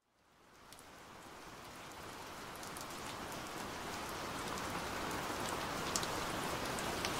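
Rain falling, fading in from silence and growing steadily louder over the first few seconds, an even hiss with scattered sharp drop ticks.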